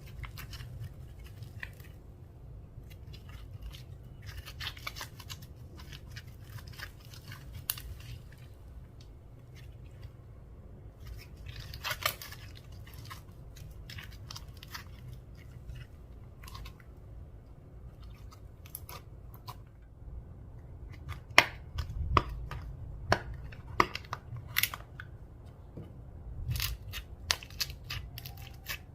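Slime being mixed and squeezed by hand, giving irregular sticky clicks and small pops, with a run of louder clicks about three quarters of the way through.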